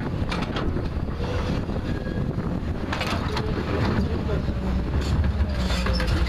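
JCB backhoe loader's diesel engine running steadily under working load, with a few sharp scraping knocks about halfway through and again near the end.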